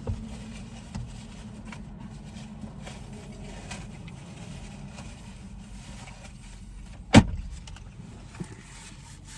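Car engine running with a steady low hum, heard from inside the cabin, with a few faint clicks and one sharp, loud thump about seven seconds in.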